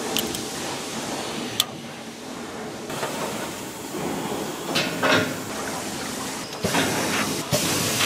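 Compressed air hissing, with sharp metal clicks and knocks, as quick-connect air lines are clamped onto an aluminium car air-conditioning condenser and it is lowered into a water tank for a pressure leak test. The hiss gets louder near the end.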